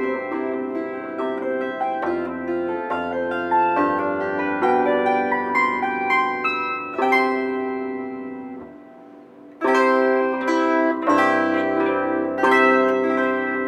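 A solo plucked string instrument playing a folk-song variation: runs of plucked notes over held bass notes. The music dies away to a brief lull a little past the middle, then comes back in with loud plucked chords.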